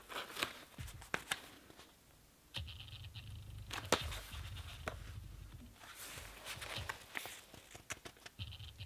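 A paperback manga volume being handled: scattered soft knocks and rustles as it is picked up and moved, then its pages opened and held spread, over a low hum that sets in about two and a half seconds in.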